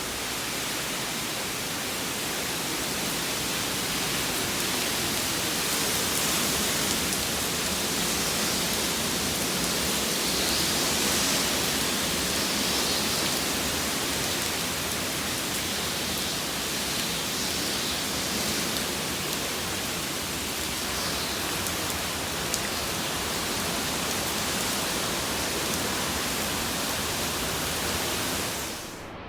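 Hurricane wind and heavy rain: a steady rushing noise that swells a little in the first half and eases again.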